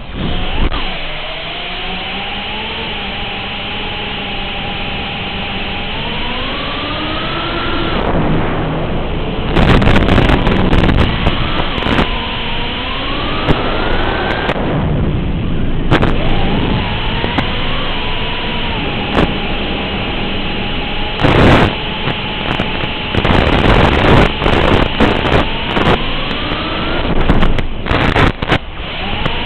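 FPV quadcopter's brushless motors and 5-inch propellers whining, the pitch climbing and dropping with throttle through the freestyle flight. There are loud rushing passes and bursts of crackling static, heaviest near the end as the analog video signal breaks up. The sound is thin and cut off at the top, as heard through the quad's onboard transmitter audio.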